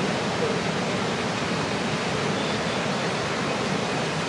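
Ocean surf breaking, a steady even wash of noise with no single wave standing out.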